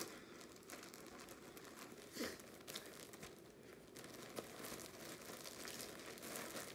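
Faint crinkling and rustling of packaging being handled while yarn is unpacked, with a slightly louder rustle about two seconds in.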